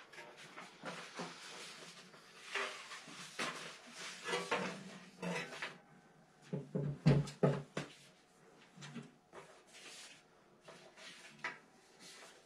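Scattered small knocks and rustles of handling noise, with a cluster of louder, deeper thumps about halfway through.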